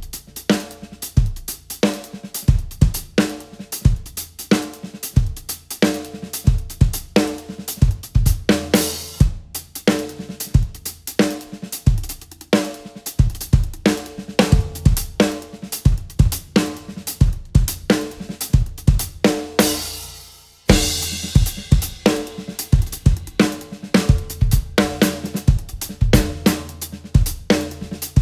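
Acoustic drum kit played as a solo: fast, busy patterns across snare, toms and bass drum, with hi-hat and cymbal crashes. About twenty seconds in the playing drops out for a moment and then comes back in on a loud cymbal crash.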